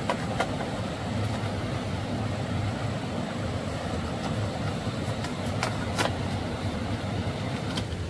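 Steady low rumble of a running engine, with a few sharp clicks over it.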